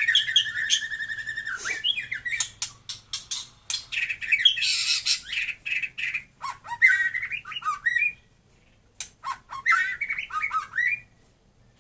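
A white-rumped shama (murai) singing: a fast, varied run of clear whistles, trills and sharp chirps, breaking off twice into brief silences.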